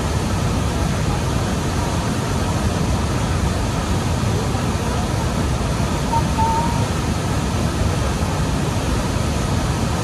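Large waterfall plunging into its pool: a loud, steady rush of falling and churning water, heaviest in the low end.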